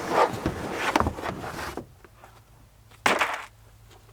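Rustling and handling noise of things being moved about, then a single short knock about three seconds in.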